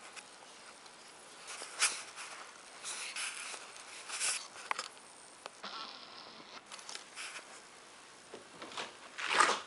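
Rustling and scraping handling noise from a hand-held camera being moved around a room: a few short scrapes over a low hiss, the loudest near the end.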